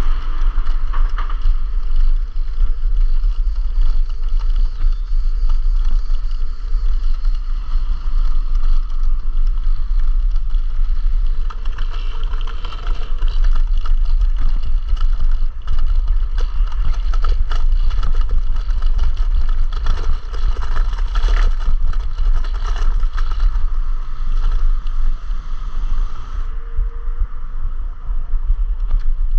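Wind buffeting the microphone of a chest-mounted action camera on a moving electric scooter: a steady low rumble, with scattered rattles and clicks from the scooter running over the road surface.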